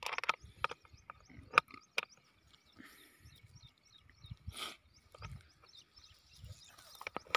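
Metal spanner clicking and tapping on the nuts and bolts of a CID pipe coupling as they are tightened, in a few scattered short clicks.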